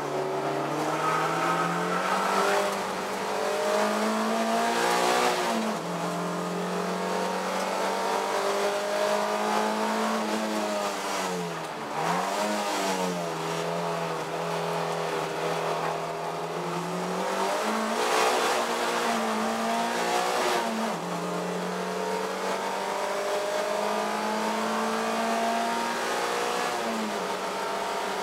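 Onboard sound of a Toyota MR2 race car's engine under hard acceleration at racing speed. The note holds high and steps down at gear changes. About midway it falls away under braking with a few quick blips on the downshifts, then climbs again, over steady wind and road noise.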